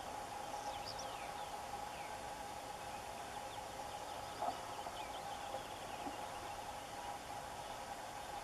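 Open-field ambience: a steady low background drone with thin, high, falling songbird notes scattered through it, and one brief louder blip about halfway through.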